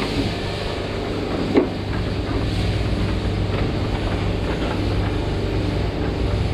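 Shearing machine running with a steady mechanical hum and a single sharp knock about one and a half seconds in.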